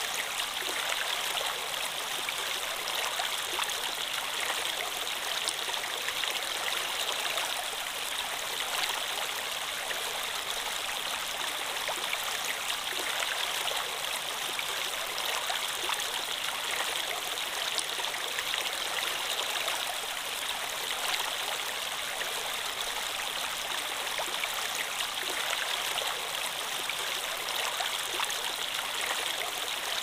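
A rocky stream flowing over and around boulders: a steady rush of water.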